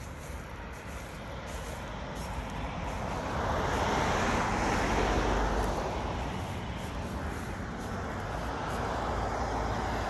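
A road vehicle driving past on the street: tyre and engine noise swells about three seconds in, is loudest around the middle, then slowly fades.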